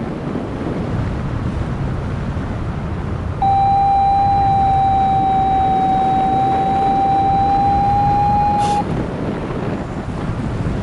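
Wind buffeting the microphone throughout. About a third of the way in, a steady electronic tone starts and holds one pitch for about five seconds, then cuts off with a click.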